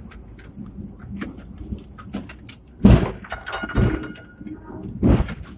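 Hong Kong double-decker tram running, its body rattling with many small clicks and several heavy knocks, and a brief thin squeal in the middle.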